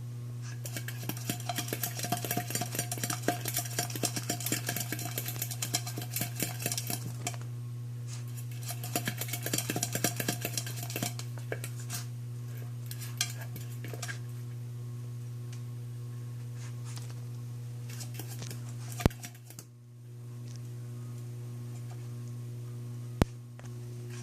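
Puppy's empty food bowl clattering and rattling in two long runs of quick clicks as the dog noses and pushes it around, begging for more food. A steady low hum runs underneath, and a couple of single sharp clicks come near the end.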